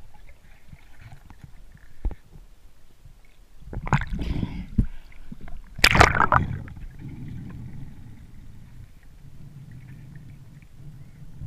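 Underwater sound picked up by a diver's camera in murky fresh water: a low rumble of moving water, a sharp click about two seconds in, and two loud bursts of rushing water noise about four and six seconds in.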